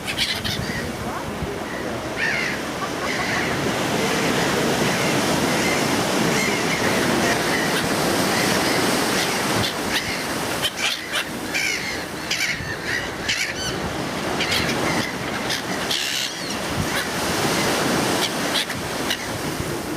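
Surf washing on the Baltic shore in a steady rush, with gulls calling in short bursts several times, most around the middle and near the end.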